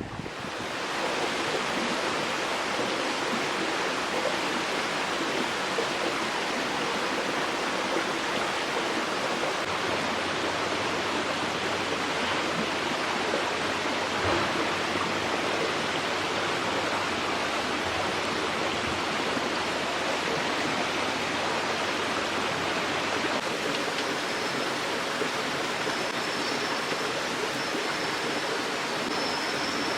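Stream water rushing steadily over rocks, an even continuous rush.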